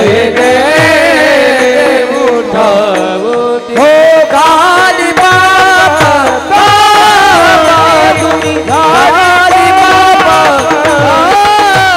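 A man singing a slow devotional melody in raga Bhairavi, drawing out long ornamented notes that bend up and down. A steady drone holds underneath, and low, regular drum strokes from a mridang (pakhawaj) keep time.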